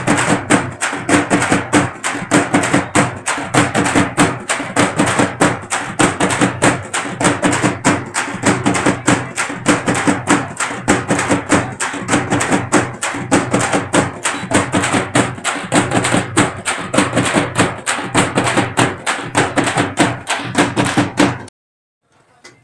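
Dance music with a fast, steady percussive beat, which cuts off suddenly near the end.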